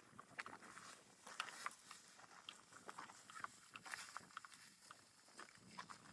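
Faint, irregular rustling and crackling of dry wheat stalks as a dog bounds through the field.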